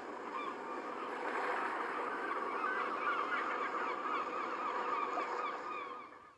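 A flock of seagulls calling over one another, many short overlapping cries, over the steady wash of ocean waves; the sound fades out near the end.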